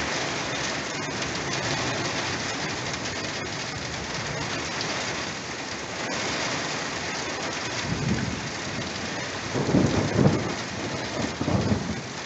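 Steady heavy rain pouring down, with a low rolling rumble of thunder coming in about two-thirds of the way through and swelling a few times near the end.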